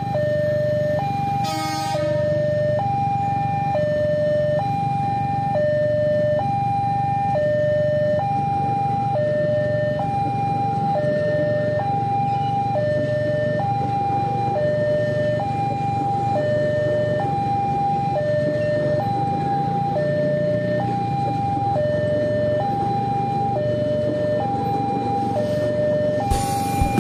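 Level-crossing warning signal sounding two alternating electronic tones, high then low, about once every second and a half. Under it is the steady rumble of a JR 205 series electric commuter train passing the crossing. A brief sharp sound comes about two seconds in.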